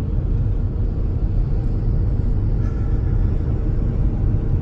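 Steady low rumble of engine and tyre noise inside a Ford Flex's cabin while it is driven at highway speed.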